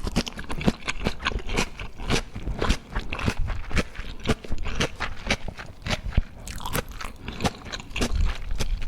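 Close-miked mouth sounds of a person chewing food, with a dense run of crunchy, crackling bites a few times a second.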